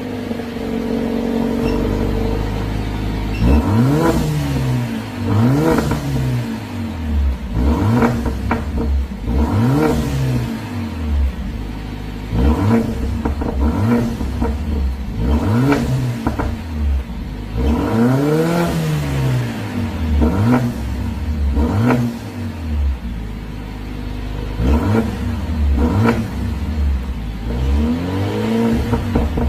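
Mercedes-AMG A45's turbocharged 2.0-litre four-cylinder, fitted with a sport mid-pipe exhaust, idling and then free-revved about a dozen times, with one longer rev partway through. Short crackles come from the exhaust as the revs fall.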